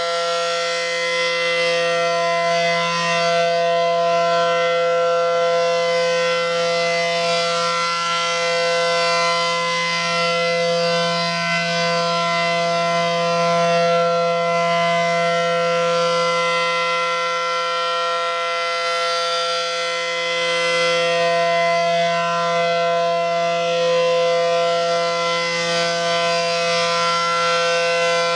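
ACA Allertor outdoor warning siren sounding a steady tone: several pitches held together without rising or falling, the sound swelling and easing slowly about every ten seconds.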